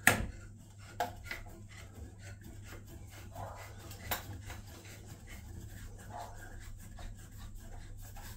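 Pipe slice (a hand-turned rotary pipe cutter) being worked round a copper pipe: a sharp click as it goes on, then faint, quick scraping ticks as the blade is turned round and cuts into the pipe.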